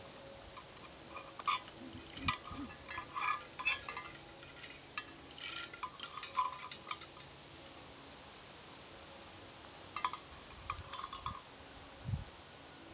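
Light metallic clinking in scattered, irregular short bursts, in two spells separated by a few seconds of quiet.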